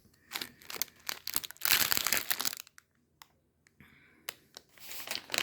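Plastic food packaging crinkling in irregular bursts as it is handled, loudest about two seconds in, with a short pause before more rustling.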